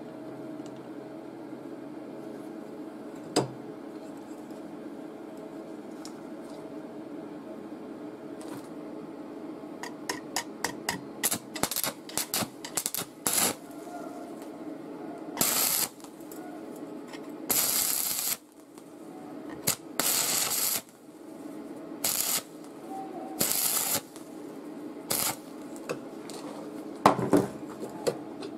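Stick (arc) welding: a quick run of short arc strikes about ten seconds in, then a series of short welding bursts, each half a second to a second long, as the electrode tacks a bolt onto a chain link. A steady low hum runs under the first part.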